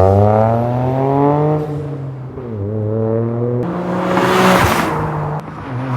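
Toyota GR Corolla's turbocharged 1.6-litre three-cylinder engine through an SXTH Element dual exhaust with a resonated mid-pipe and downpipe, revving up under acceleration for about a second and a half, then falling. Past halfway the sound changes to the car going by, a rushing noise over a steady exhaust note.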